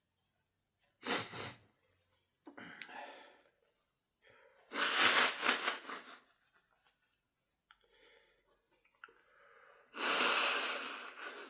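A man's induced sneezes and sharp breaths through the nose: a short sudden burst about a second in, a softer breath, then two loud, longer bursts, one about five seconds in and one near the end.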